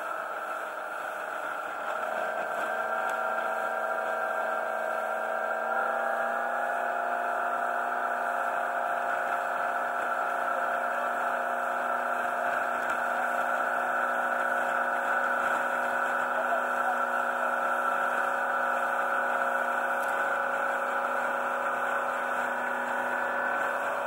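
Boat engine running steadily at speed, with a whine made of several steady tones. It gets louder about two seconds in and its note shifts slightly a few seconds later.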